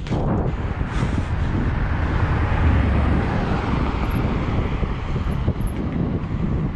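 Wind rushing over the microphone of a bike rider's camera, a steady low rumble, with highway traffic running alongside.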